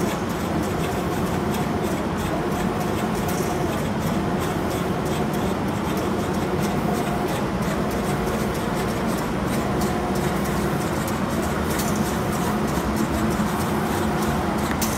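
Automatic spray-painting machine for cabinet doors running: a steady mechanical hum, with a higher tone that comes and goes every few seconds.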